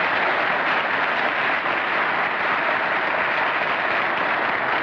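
Studio audience applauding, a dense steady clapping.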